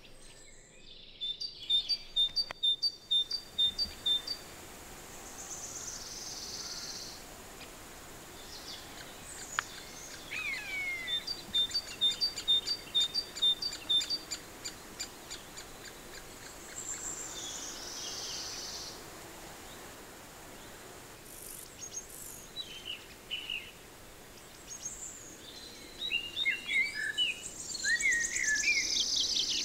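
Wild birds singing in the open, over a faint steady outdoor background. Twice a bird gives a run of evenly spaced high notes, a few a second: about a second in and again about eleven seconds in. A busier tangle of chirps comes near the end.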